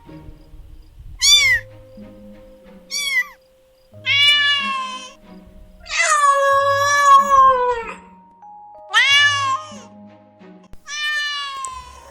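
Domestic cat meows, six in all: short calls that rise and fall in pitch, with one long drawn-out meow about six seconds in, over soft background music with held notes.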